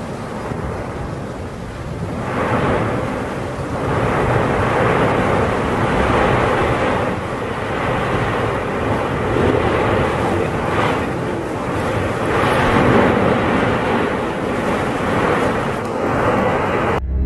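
Rushing roar of an erupting volcano's lava flow, a broad rumbling noise that swells and eases every second or two and grows louder about two seconds in. It cuts off suddenly near the end.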